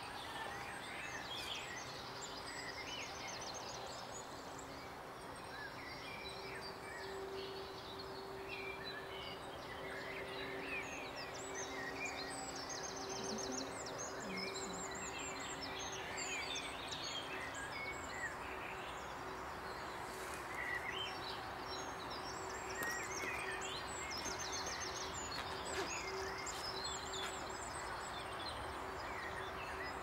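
Small woodland birds singing and calling, with many short chirps and quick trills, over a faint steady low hum.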